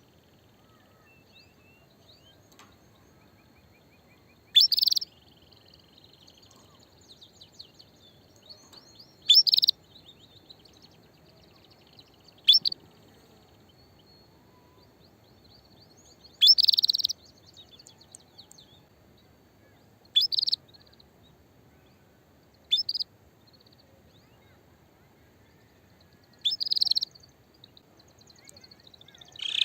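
Female canary giving short, sharp calls, seven of them a few seconds apart, with faint chirping in between: a hen's call to males when she is ready to mate.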